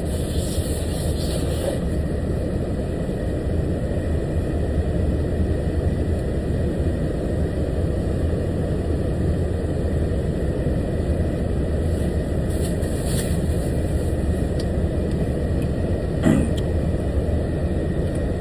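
Steady low rumble of a truck's engine running, heard from inside the cab, with a short faint sound about sixteen seconds in.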